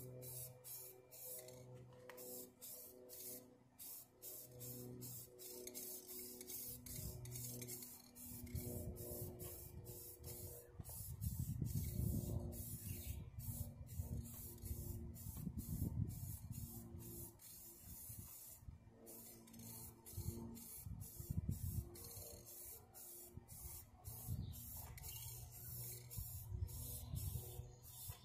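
Aerosol spray paint can hissing in repeated bursts with brief breaks between them as gray paint is sprayed onto aluminum camper siding.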